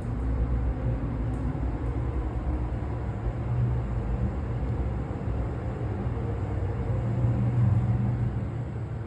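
Elevator car (a 2003 Minnesota Elevator car modernized by Schindler) travelling between floors: a steady low hum and rumble that swells about eight seconds in and then eases near the end.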